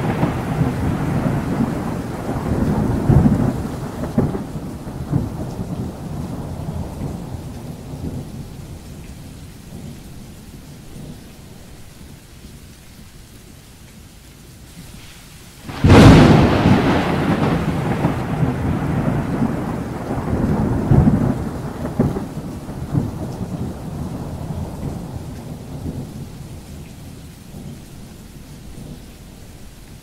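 Thunder from a severe thunderstorm, heard from inside a car with rain hitting it. A rolling rumble fades away over the first ten seconds; about halfway through a sudden loud thunderclap breaks, then rumbles on and slowly dies down.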